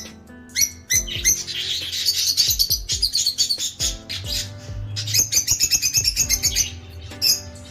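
A flock of lovebirds (rosy-faced and Fischer's) chattering: two long runs of fast, high, shrill chirps with a short lull between them, and single sharp calls at the start and near the end.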